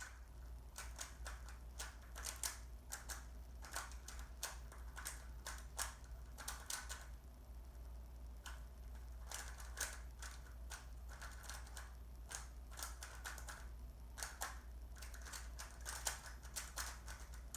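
Plastic Rubik's cube being turned fast during a timed speedsolve: rapid runs of clicking and clacking as the layers snap round, with short pauses between bursts.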